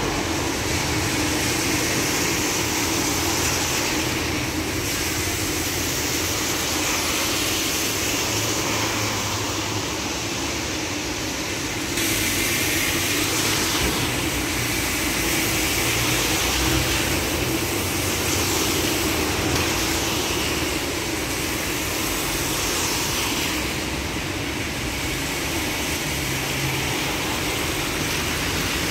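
Road traffic on a wet road: buses and cars passing with engines running and a steady hiss of tyres on the wet tarmac.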